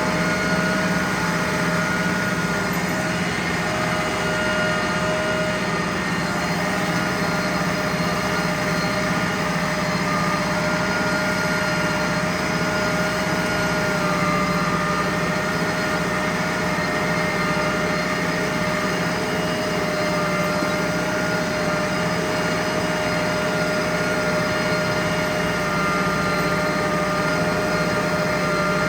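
Ford 6610 tractor's diesel engine running steadily while pulling a John Deere 450E round baler through the hay, with a steady mechanical hum and a few held tones from the machinery.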